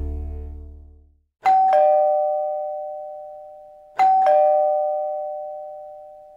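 Music fading out, then a two-tone doorbell chime (ding-dong), a higher note falling to a lower one, struck twice about two and a half seconds apart, each ringing on and dying away slowly.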